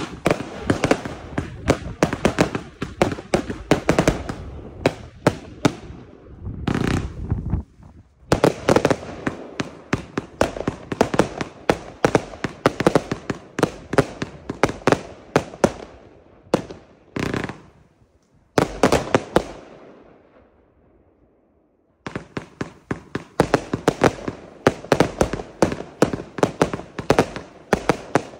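Consumer firework batteries (compound cakes) firing: rapid launch thuds and bursting shots, several a second. The firing breaks off briefly about eight seconds in and goes quiet for about two seconds around twenty seconds in, then starts again.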